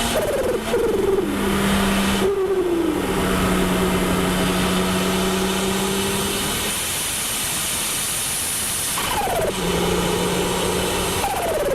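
Car engine revved several times, its pitch falling back after each blip, with a steady low hum from the engine between the revs.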